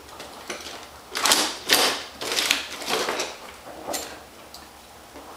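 Tools clattering and scraping as a hand rummages through an open tool case: a run of rattling bursts for about two seconds, then a single clack a second later.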